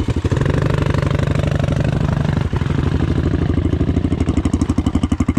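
Shineray 250 STXE motorcycle's single-cylinder engine idling. Its even beat turns into a slower, heavier pulsing after about three and a half seconds.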